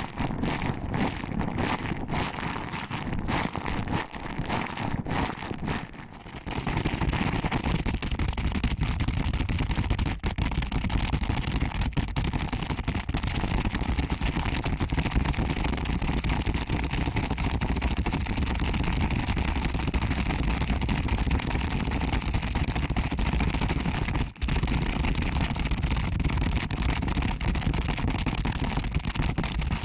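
Close-up ASMR ear pinching and rubbing: fingers squeezing and kneading the ears of a binaural microphone, giving a dense crackling rustle with a deep rumble. It dips briefly about six seconds in, then comes back louder and fuller, with one short break near the end.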